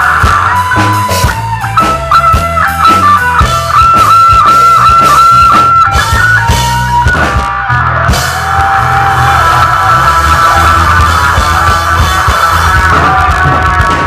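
A rock band playing live: an electric guitar plays a lead line of quick repeated notes over drums and bass guitar.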